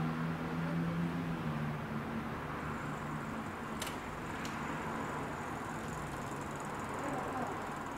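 Road traffic heard through a window: steady road noise, with a passing vehicle's low engine hum fading away over the first couple of seconds. Two small sharp clicks sound about halfway through.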